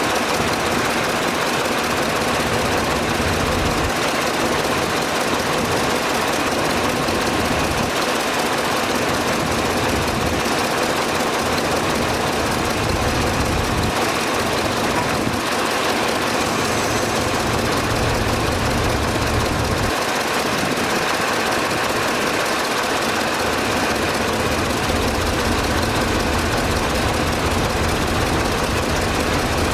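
Heavy diesel engine of earthmoving machinery running steadily under work, with its low rumble swelling and easing every few seconds.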